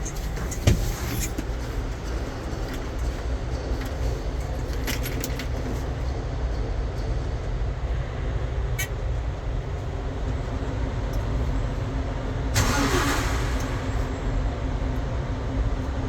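Konecranes forklift engine running steadily at idle, with a sharp click about a second in and a brief rush of hiss around two-thirds of the way through.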